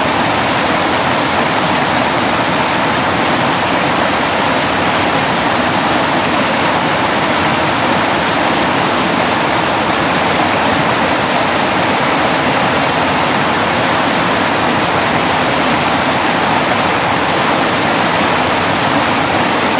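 Mountain creek rushing over boulders in rapids: a steady, loud roar of white water that does not change.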